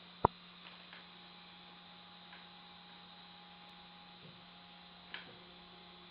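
Steady electrical hum, with one loud sharp click just after the start and a few small clicks as the extruder is handled, the most prominent about five seconds in.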